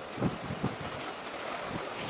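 Wind buffeting the microphone in gusts, with low rumbles over a steady rush of wind and sea.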